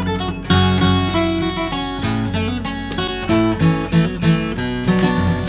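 Steel-string acoustic guitar played solo: a picked melody over bass notes, an instrumental break between the sung verses of a Thai folk ballad.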